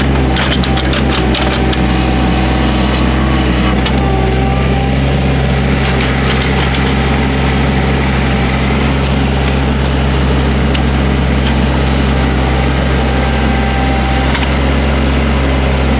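Excavator diesel engine running steadily, with bursts of woody cracking and splintering as brush is broken up, about half a second to two seconds in and again around six seconds in.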